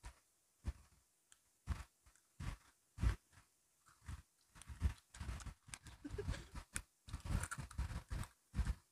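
Crunchy biscuit sticks being bitten and chewed close to the microphone. At first there are single crunches about a second apart, then from about halfway the chewing comes quicker and denser.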